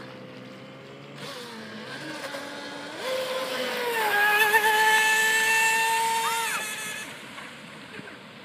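Homemade RC hydroplane's 3180 KV brushless motor and hard-shaft propeller whining at high throttle as the boat runs past. The pitch steps up about three seconds in and holds steady, then the whine cuts off about two-thirds of the way through.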